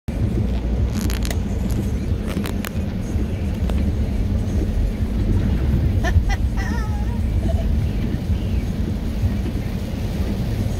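Steady low rumble of a car driving on a wet road in the rain, heard from inside the cabin, with a few sharp clicks about one and two and a half seconds in and a brief wavering squeak about six seconds in.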